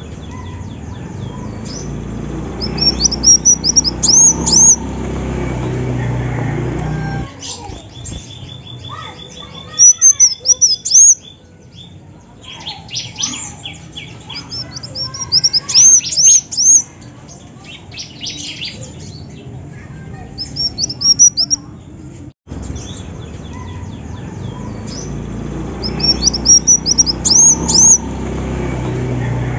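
Female kolibri wulung sunbird calling: short, sharp high-pitched chirps in quick clusters every few seconds, with a rapid run of ticking notes about 8 to 10 seconds in. A low background rumble sits under the calls in the first and last parts.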